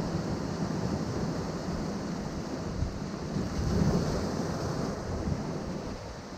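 Ocean waves washing against a rocky shore: a steady rush of surf that swells to its loudest about four seconds in, then eases.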